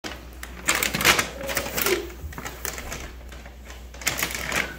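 Two flurries of rapid clicking and rattling, one starting under a second in and lasting about a second, another near the end.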